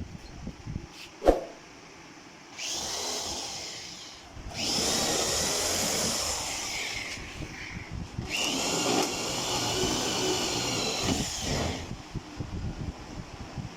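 Electric power drill running: a sharp knock, then the drill runs with a whine for about five seconds, stops briefly and spins up again for nearly four more.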